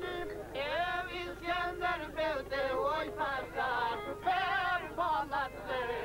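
Old Albanian folk song sung in a high, wavering voice with heavy vibrato and ornamented, bending phrases, with string accompaniment underneath.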